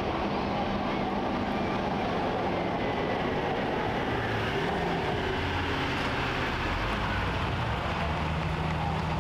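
Diesel pickup truck engine running steadily, its engine note dropping around the middle and climbing back near the end.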